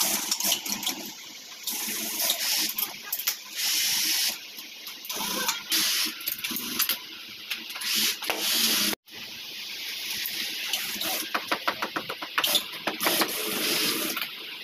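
Industrial sewing machine stitching leather glove pieces, running in bursts of a second or two with a hissing motor sound and rapid needle clicks.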